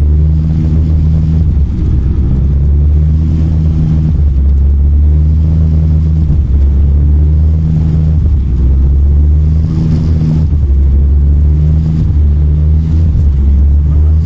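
Steady, loud low rumble of a running vehicle engine, with a continuous low hum throughout.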